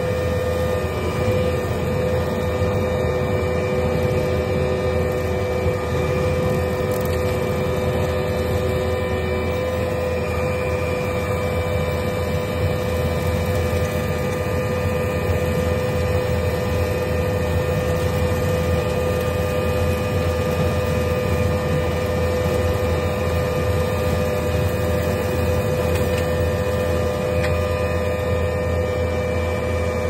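Skid steer running with a hydraulic Kubota SC4072 rotary brush cutter driven off it, heard from the operator's seat: a loud, steady drone with a held whine over it.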